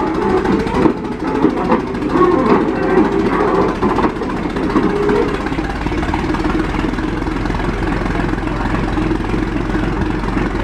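Engine of a 1917 Holt 120 crawler tractor running steadily at a fast idle while the tractor stands in place.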